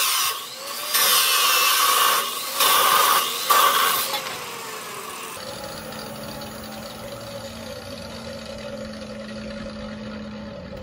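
Chop saw with a metal-cutting blade cutting through aluminum tubing in several loud bursts with short pauses between them, stopping about four seconds in. A quieter, steady low hum follows.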